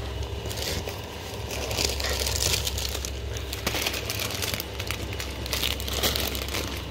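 Plastic bag of Chipsfrisch crisps crinkling in bursts as it is picked up and handled, loudest around two to three seconds in and again near six seconds.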